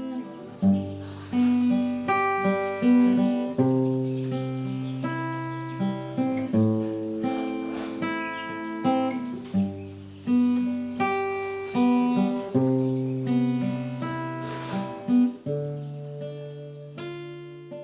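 Background music: an acoustic guitar playing plucked and strummed notes over a steady bass line.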